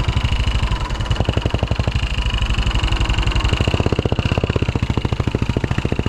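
Royal Enfield single-cylinder motorcycle engine running at low speed, a steady rapid beat of exhaust pulses as the bike is eased over a rocky, muddy road.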